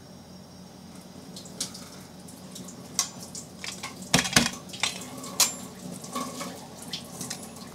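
Scattered light taps and clicks of a metal cookie cutter and flat press plate being handled on a disc of dalgona sugar candy, with the loudest knock about four seconds in, over a faint steady hum.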